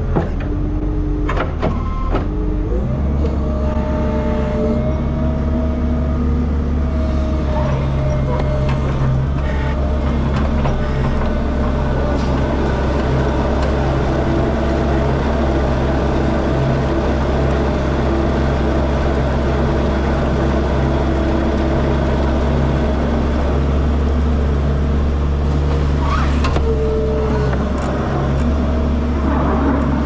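Skid steer engine running steadily under load while it pushes a manure scraper along a concrete barn alley, the engine picking up about three seconds in.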